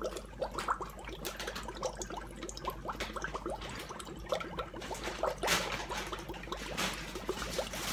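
Air blown through a drinking straw into water in a cup, bubbling in quick, irregular gurgles and pops: a straw-in-water vocal relaxation exercise.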